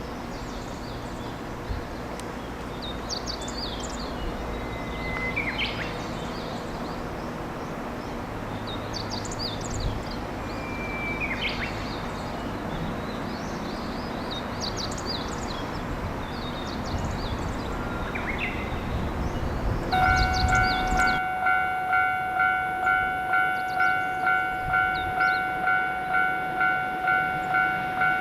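Outdoor ambience of low rumble with birds singing. About twenty seconds in, after an abrupt cut, a Japanese level-crossing's electronic warning bell rings in a steady beat of about one and a half strikes a second, signalling that a train is approaching.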